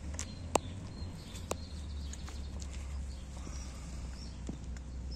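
A kitten feeding at a clear plastic cup on the ground, giving a few sharp clicks and taps, three of them in the first second and a half and fainter ticks after, over a steady low rumble.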